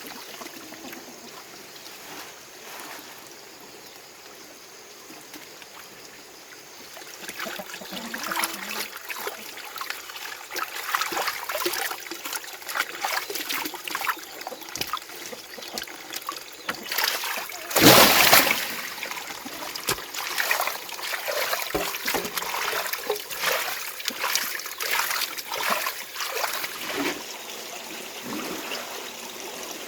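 Water trickling, then irregular splashing from about seven seconds in, with one loud splash about halfway through.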